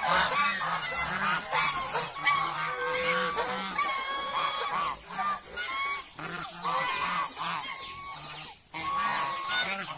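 A flock of domestic geese honking, many short calls overlapping almost without a break, as they crowd round to be fed.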